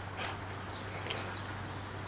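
Cats eating dry kibble from plastic dishes, with two brief crunching noises about a quarter second and a second in, over a steady background hum and a few faint short high chirps.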